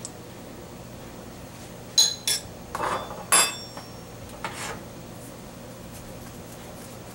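A metal spoon clinking against the stainless saucepan and then set down in a small bowl. A few sharp, ringing clinks and scrapes come between about two and three and a half seconds in, and a softer clink follows a second later.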